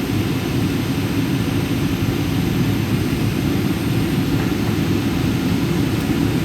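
Steady cabin noise of a Boeing 737 heard from inside the passenger cabin: an even jet-engine and airflow rumble, strongest in the low end, with no change.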